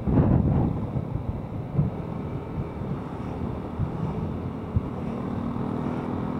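Wind buffeting the microphone over the engine and road noise of a motorcycle under way; gusty and louder in the first second, then settling to a steady hum.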